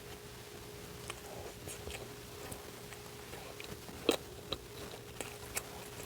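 Close-miked chewing and biting of a deviled-egg sandwich on an English muffin: scattered soft wet mouth clicks, the loudest about four seconds in, over a faint steady hum.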